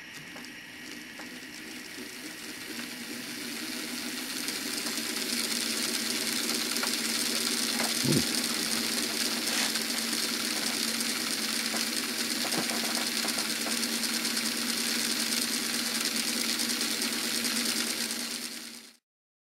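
Small electric motor and gear train of an N-scale Minitrix K4 model locomotive running while held back by a pull meter, a steady whirring hum that grows louder over the first few seconds, with a brief click about halfway, then stops suddenly near the end.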